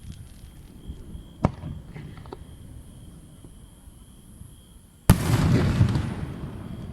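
Festival fireworks going off: a few small pops and a sharp crack about a second and a half in, then a loud burst about five seconds in, followed by about a second of crackling that dies away.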